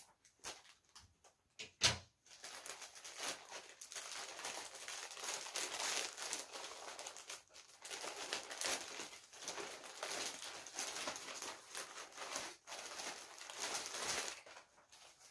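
Black plastic mailer bag crinkling and rustling as it is pulled open by hand, after a sharp click about two seconds in. The rustling dies down near the end.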